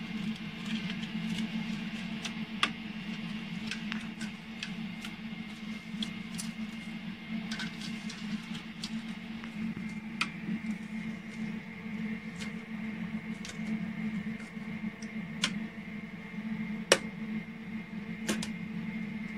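Irregular metallic clicks and taps as 35mm film is threaded through a Simplex 35mm projector's sprockets, rollers and gate, over a steady low hum. The sharpest click comes about 17 seconds in.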